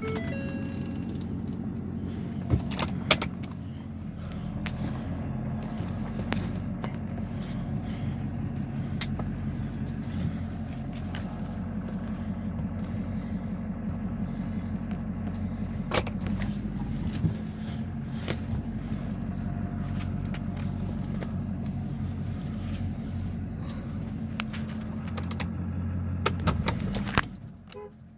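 Ford Super Duty turbo-diesel V8 idling steadily at about 700 rpm, with a few clicks and a jingle of keys hanging at the ignition. The engine sound falls away shortly before the end.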